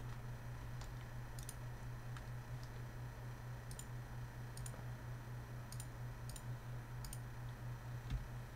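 Faint computer mouse clicks, scattered every second or so and several in quick pairs like double-clicks, over a low steady hum.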